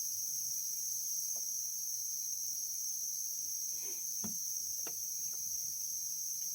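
Steady high-pitched whine and hiss from a running mist-making humidity chamber, with a few faint knocks in the middle.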